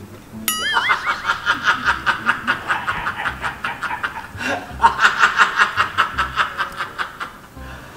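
Cartoonish, high-pitched giggling sound effect: a short wobbly sliding tone about half a second in, then a long run of fast, squeaky 'hehehe' laughter pulses that pauses briefly midway and stops just before the end.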